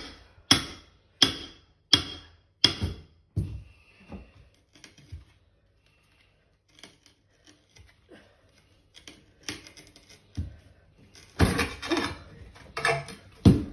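Hammer striking a chisel to chip up ceramic floor tiles: five sharp, ringing metal-on-metal blows about every 0.7 s, then a few lighter taps. After a pause there is a run of clattering and knocking near the end as the chisel is worked under the tile and the tile breaks loose.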